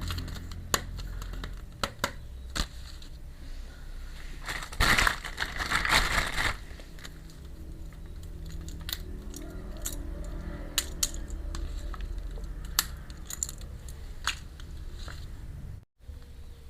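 Small pieces of a miniature toy kitchen set clicking and tapping as they are handled, with a louder rustling stretch about five seconds in and a steady low hum underneath.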